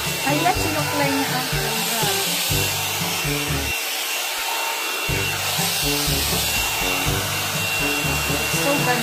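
Background music with a bass line that drops out for about a second around four seconds in, over a steady hiss.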